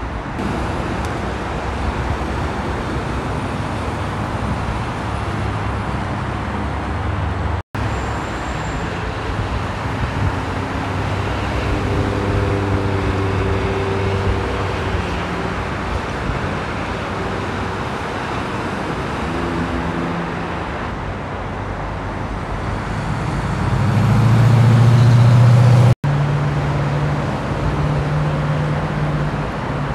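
Steady noise of heavy freeway traffic, tyres and engines together, with truck engines droning as they pass. The loudest is a deep engine drone that swells about 24 seconds in. The sound cuts out for an instant twice, once near 8 seconds and once near 26 seconds.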